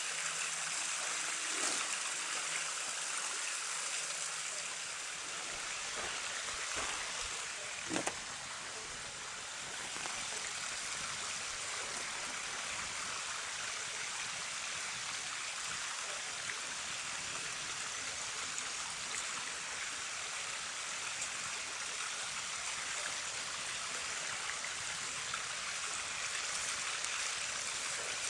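Steady rushing hiss of a flowing creek, with a few sharp clicks, the loudest about eight seconds in.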